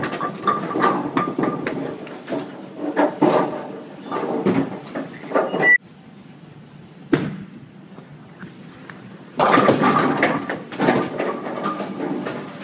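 Bowling alley noise: clattering knocks and rumbles of bowling balls and lanes, with a ball rolling down a wooden lane. The clatter cuts off suddenly about six seconds in, leaving a quieter stretch with one sharp knock, then comes back loud about nine seconds in.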